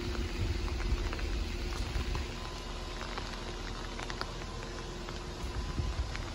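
Heavy rain falling on wet pavement: a steady hiss dotted with many small drop ticks. There are a few low thumps in the first two seconds.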